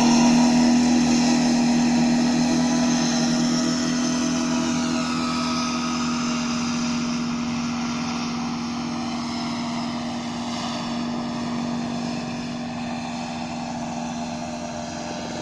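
Powered paraglider's motor and propeller running at a steady high throttle, a continuous buzzing drone that slowly fades as the craft climbs away.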